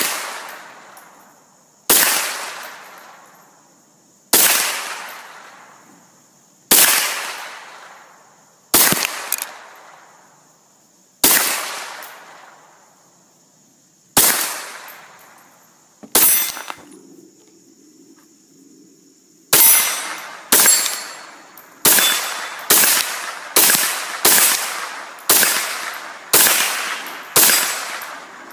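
Sig Sauer 522 SWAT .22 LR semi-automatic rifle firing single shots, about two seconds apart at first, then, after a short pause past the middle, quicker at about one shot a second. Several of the later shots are followed by a brief ring from a steel target.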